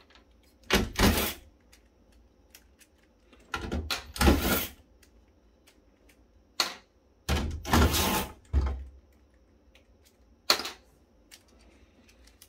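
Hand tools and metal parts being handled while standoffs are removed from a circuit board: about five short noisy bursts of rattling and scraping, with scattered sharp clicks between them.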